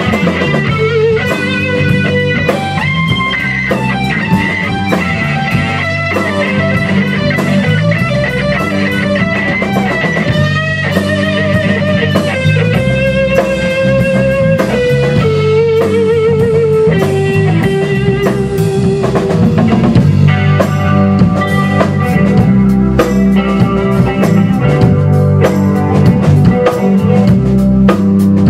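Rock band playing an instrumental passage: an electric guitar carries a lead line of wavering, bending notes over bass guitar and a Tama drum kit. The band gets louder in the last third, with more cymbal hits.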